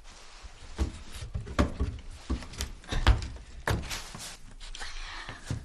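Several soft, irregular thumps and clicks of handling noise as a boy shifts about on a wooden floor and handles a plastic water bottle.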